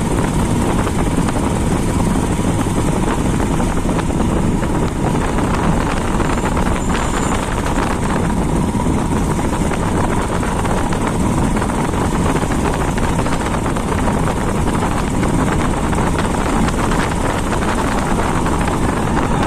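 Steady rumble of wind buffeting the microphone on a moving motorcycle, over the bike's engine and road noise.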